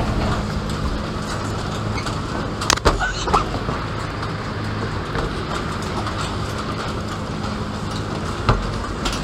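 Steady low hum and rumble, with a few sharp metallic knocks from climbing a steel scaffold staircase: a cluster about three seconds in and one more near the end.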